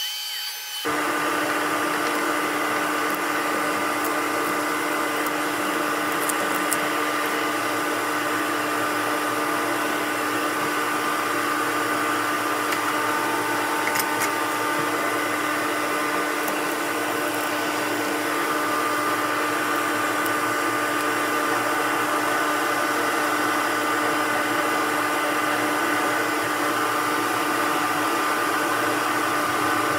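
An electric motor running steadily, with a constant hum and a fixed whine that do not change in pitch or level. There is no sound of cutting.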